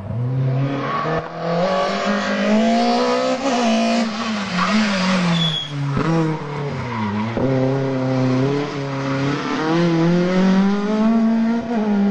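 Rally car engine revving hard, its pitch climbing and then dropping back again and again as the driver brakes, shifts and accelerates through tight hairpin bends. A brief high squeal about five and a half seconds in.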